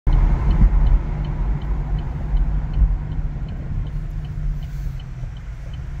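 Road and engine noise heard inside a moving car's cabin: a steady low rumble that eases off toward the end as the car slows. A faint regular ticking comes about three times a second.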